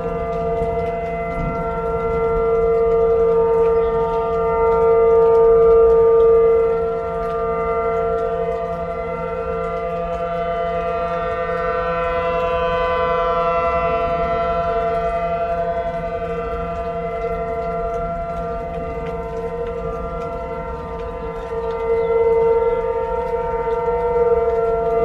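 Outdoor warning siren sounding a steady tone for a severe weather warning, its loudness swelling a few seconds in and again near the end.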